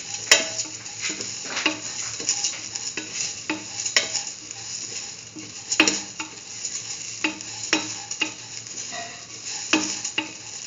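A spatula scraping and tapping against a metal pan at an uneven pace of one or two strokes a second, stirring chayote and vermicelli sautéing in ghee, over a steady soft sizzle.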